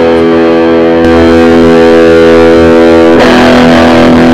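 Distorted electric guitar through a Mesa Boogie Recto-Verb 25 all-tube combo amp (EL84 power tubes) on its distortion channel at the 25-watt setting, very loud. A chord rings and sustains, and a new chord is struck about three seconds in.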